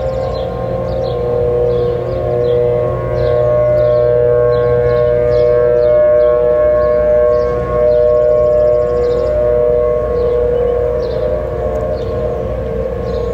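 Several outdoor tornado warning sirens, among them Thunderbolt and P-15 units, sounding together in a steady tone, their pitches overlapping and beating against each other, growing a little louder about three seconds in. Wind rumbles on the microphone underneath.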